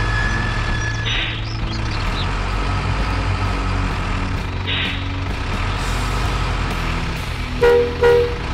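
Truck engine sound from the RC dump trucks, a steady low drone. Two short air-brake-like hisses come about a second in and again near the middle. Two short horn toots near the end are the loudest sounds.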